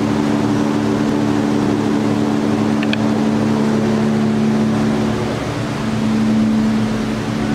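Dodge Challenger engine idling steadily, a constant low hum with a light hiss, dipping briefly twice in the second half. A short high chirp sounds about three seconds in.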